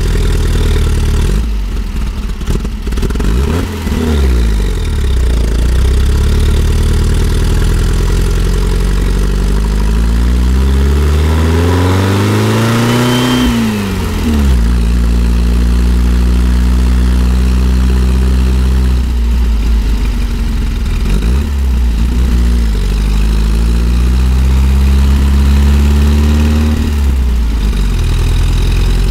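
1964 Volkswagen Type 2 Microbus's air-cooled flat-four engine pulling uphill under load. The revs climb steadily, then drop suddenly about 14 seconds in, hold steady for a while, and climb and drop again near the end.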